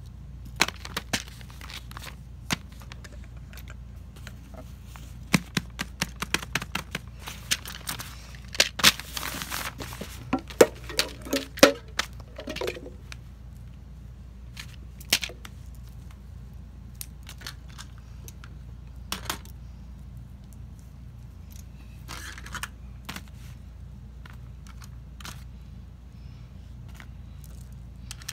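Handling of fidget toys on a sheet of paper: scattered light clicks, taps and knocks with paper rustling as toys are picked up and set down. They come thick in the first half and thin out later, over a steady low hum.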